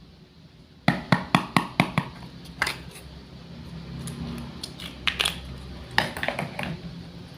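Light clicks and knocks of wooden toy food being handled and cut on a board: a quick run of about six clicks, then a few single knocks later.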